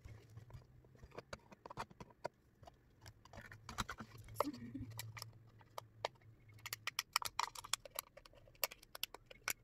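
Light clicks and taps of a plastic cup and utensil being handled, over a low hum. About seven seconds in comes a quick run of crisp snips: scissors cutting into a thin plastic cup.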